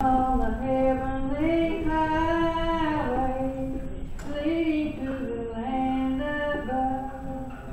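A woman singing a slow gospel song solo, one voice holding long notes, with a short break for breath about four seconds in.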